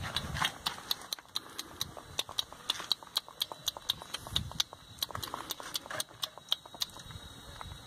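A puppy suckling at a cow's teat, its mouth making rapid clicks about five times a second that stop near the end.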